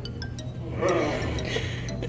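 Background music, with a few faint light clinks near the start.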